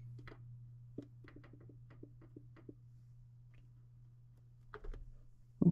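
Faint tapping clicks of fingers pressing an electric range's control-panel keypad to set the oven timer, over a low steady hum, with a sharper knock near the end.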